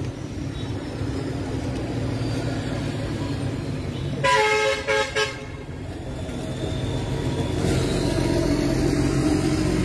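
A vehicle horn honks about four seconds in: one longer blast, then two quick short toots, over the steady rumble of road traffic.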